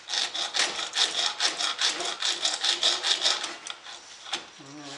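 Hacksaw cutting through the metal shaft of an old radio's rotary band switch, in fast short strokes, several a second. The sawing stops shortly before the end, followed by a single click.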